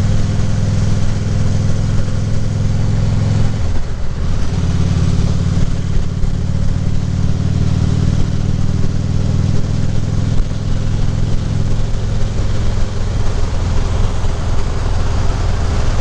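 Harley-Davidson Ultra Classic Limited's V-twin engine running steadily on the road, with wind noise on a helmet-mounted microphone. The engine note breaks and changes pitch briefly about four seconds in.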